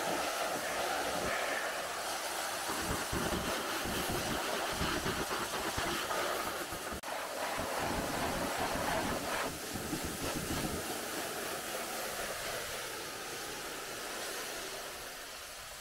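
Pressure washer jet spraying water onto a car, rinsing off the wash foam: a steady hiss of spray.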